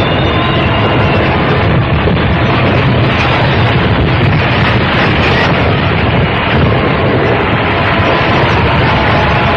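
Loud, steady rumbling rush of the aircraft-carrying cruiser Tbilisi's hull sliding down the slipway into the water as the ship is launched.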